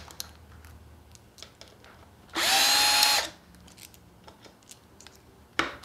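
Cordless drill/driver backing out a small 4 mm screw: one run of about a second, about two seconds in, the motor spinning up quickly to a steady whine. Small clicks of the bit and screw come before and after it.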